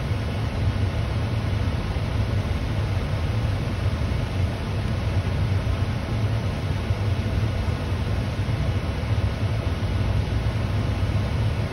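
Steady low rumble of a parked vehicle's engine idling, heard from inside the cab.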